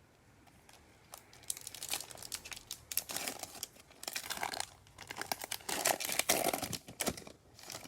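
Bowman baseball card pack wrapper being torn open and crinkled, a run of crackling and tearing that starts about a second in.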